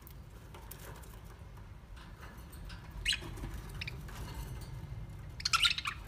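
Budgerigars chirping: a few short calls about halfway through, then a louder burst of chatter near the end, over a low steady rumble.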